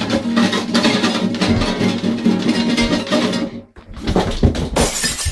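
Music with a strummed acoustic guitar that stops abruptly about three and a half seconds in, followed by a short stretch of rough, clattering noise.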